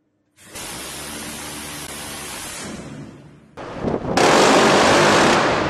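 Phalanx CIWS 20 mm six-barrel rotary cannon firing two unbroken bursts. The first lasts about two seconds and tails off. The second, louder, starts about four seconds in and lasts about a second.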